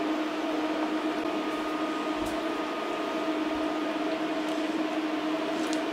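Steady electric hum with a fan-like hiss from the induction hob heating a pot of simmering soup. There is a faint low knock about two seconds in.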